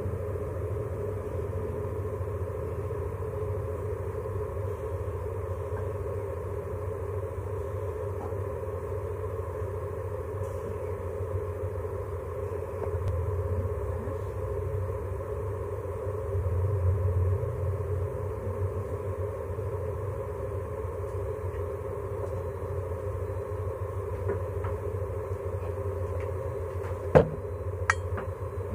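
Steady low background rumble. Two sharp clicks come near the end.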